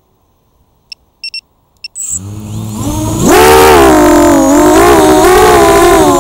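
A few short beeps, then the Vortex 285 FPV racing quadcopter's brushless motors spin up with a rising whine about two seconds in and run loud at high throttle, the pitch wavering up and down as the throttle changes, heard from the onboard camera.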